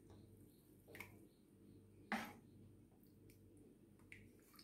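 Spoons clicking against bowls while mango pulp is stirred into thick vermicelli kheer: mostly near silence, with two soft clicks, about a second and about two seconds in.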